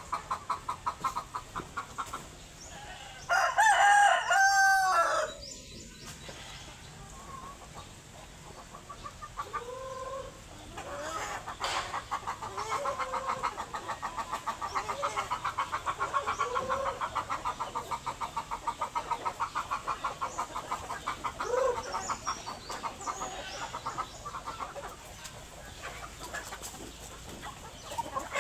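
Chickens clucking with rapid repeated calls, and one loud rooster crow about three seconds in.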